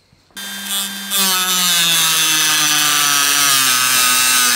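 Dremel rotary tool with a thin cut-off wheel starts up about half a second in with a high whine. About a second in the wheel bites into carbon fiber sheet, adding a steady grinding, and the motor's pitch sags slowly under the load of the cut.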